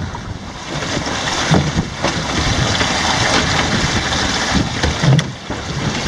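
Wind buffeting the microphone in gusts over water splashing around a small sailing boat under way in rough conditions.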